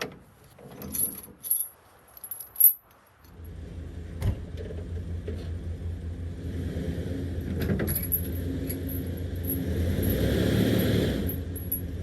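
Metal clinking and rattling, like a chain being handled, then a vehicle engine starts running about three seconds in and works under growing load as it tries to pull out a log that stays wedged in the ground.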